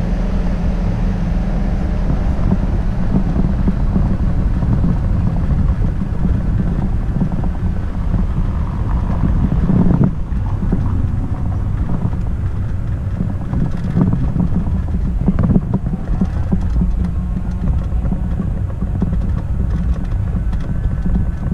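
Wind buffeting a small action-camera microphone: a steady low rumble, with a few faint knocks.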